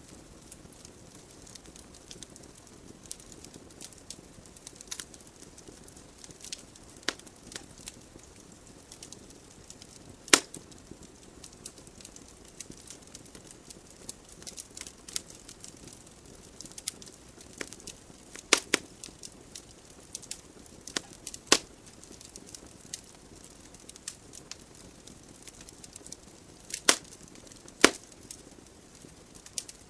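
Wood fire burning in a fireplace: a soft steady hiss under irregular crackles and sharp pops from the burning logs, a few much louder pops scattered through.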